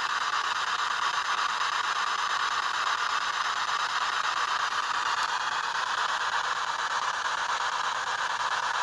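A steady, even hiss like static, with nothing else over it.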